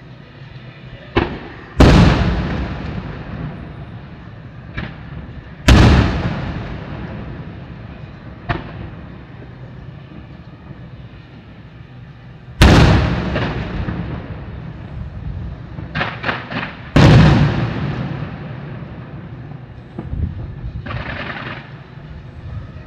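Aerial firework shells bursting: four heavy bangs a few seconds apart, each rolling away in a long echo, with lighter sharp pops between them, including a quick run of three just before the last big bang, and a short hiss near the end.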